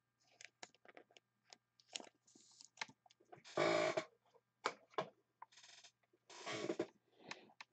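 A trading card and its clear plastic sleeve being handled: scattered small clicks and taps, with two short rustling scrapes, about three and a half and six and a half seconds in.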